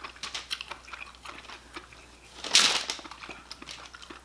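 Close-up eating sounds: small clicks and crackles of cooked crab shell being picked apart by hand, with one louder, noisier sound lasting about a third of a second a little after two and a half seconds in.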